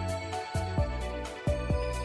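Background music with a steady drum beat, a bass line and a held melody.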